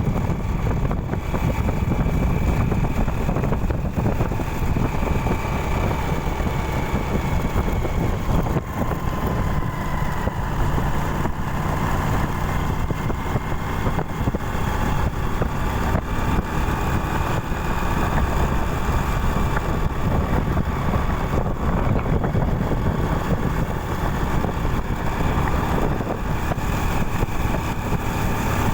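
Small 110cc motorcycle engine running steadily while riding, its pitch drifting slowly with speed, with wind buffeting the microphone.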